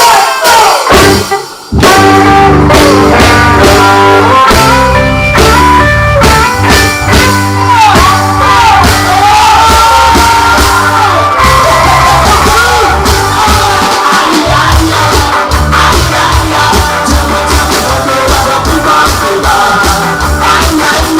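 Live ska band playing loud. After a short break about a second and a half in, the full band kicks in with a strong bass line and guitar.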